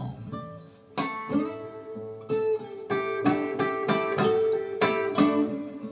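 Blues recording played back over Harbeth 30.1 loudspeakers: an instrumental guitar break of plucked notes over one held note, between sung lines.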